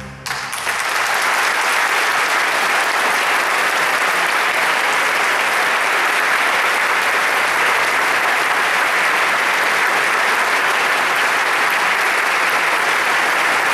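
Large audience applauding, breaking out just after the start and holding steady and dense throughout.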